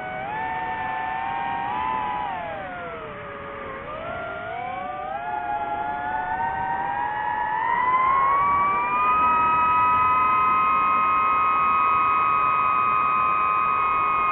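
DJI FPV drone's motors and propellers whining, the pitch gliding with the throttle: it dips to a low point about four seconds in, climbs again and holds a steady high whine through the second half.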